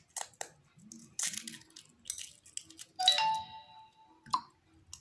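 A hen's egg being tapped on a ceramic bowl and cracked open: a few light taps, then a sharper knock about three seconds in that leaves the bowl ringing for about a second, and one last click.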